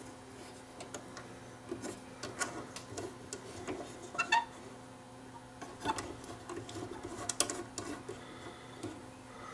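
Small irregular clicks and scrapes of plastic and metal as a cartridge shell is handled and fitted onto the tonearm of a Thorens TD165 turntable, with a faint steady hum underneath.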